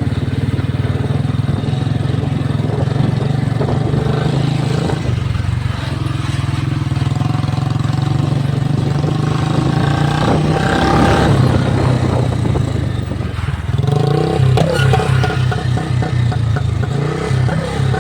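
Royal Enfield Bullet's single-cylinder engine running under load off-road, with a steady low beat that turns choppy and uneven about fourteen seconds in.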